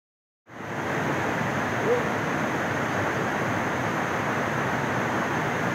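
Steady rush of a rocky stream and small waterfall, starting abruptly about half a second in.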